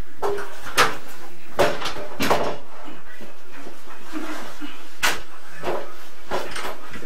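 Several short knocks and clatters as a mirrored medicine cabinet is held and shifted against a wall.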